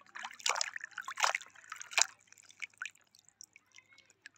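A hand splashing in a shallow tub of water and lifting out a plastic toy elephant, with water dripping off it. The splashes are loudest in the first two seconds, then thin out to scattered drips.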